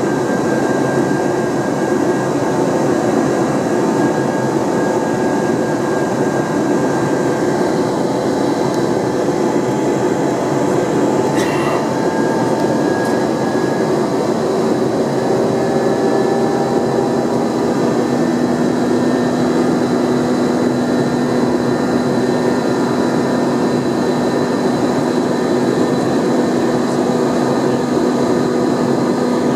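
Steady cabin noise of an Airbus A321-231 in the climb after takeoff: its IAE V2500 jet engines and the airflow over the fuselage, a constant rushing noise with a few faint steady hums in it. A lower hum comes in about two-thirds through, and there is a single short click near the middle.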